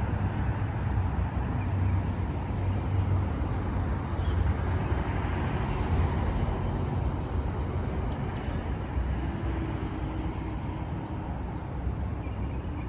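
Road traffic noise: a steady low rumble of cars going by.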